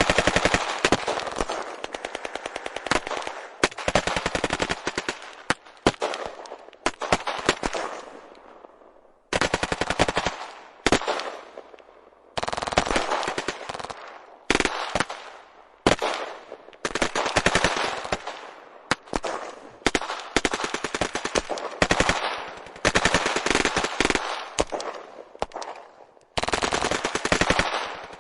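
Automatic gunfire in rapid bursts, one burst after another with short gaps between, each burst fading away after the shooting stops.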